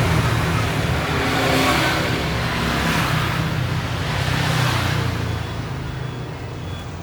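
Motor vehicle engine noise, swelling twice and then fading away, like traffic passing.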